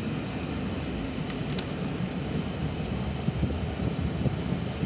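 Steady road and engine rumble with wind hiss, typical of a car driving along, with a few faint clicks.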